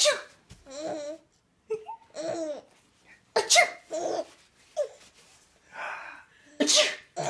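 Three sneezes, one at the start, one about three and a half seconds in and one near the end, each followed by bursts of a small child's giggling laughter.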